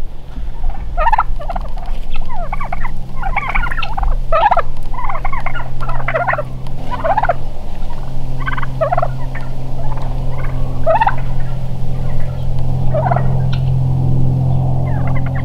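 Rio Grande wild turkey toms gobbling over and over. Several overlapping gobbles come close together for the first seven seconds or so, then single gobbles every second or two. A steady low hum runs underneath.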